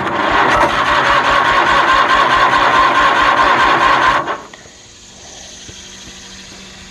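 Kohler Magnum 20 HP twin-cylinder engine cranked over by its electric starter on full choke for about four seconds, turning over in an even rapid rhythm without catching, then stopping. The owner fears that the fuel pump has failed.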